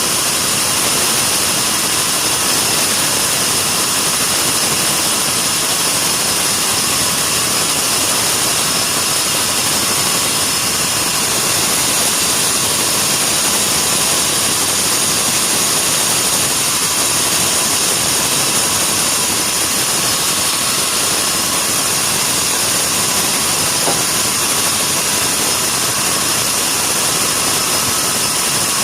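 Sawmill machinery running steadily: a loud, even mechanical noise with a hiss and a few high tones held level throughout.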